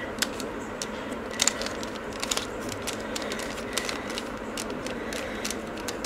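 Plastic mirror cube being turned by hand: irregular light clicks and clacks of its layers turning, some in quick little runs, over a steady faint hiss.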